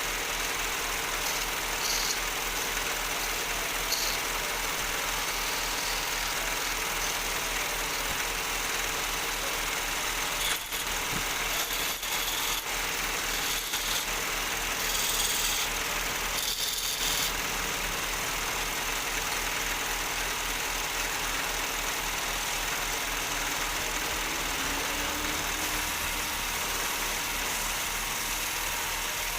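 Electric wood lathe running steadily with a low motor hum, with a few brief louder noises near the middle.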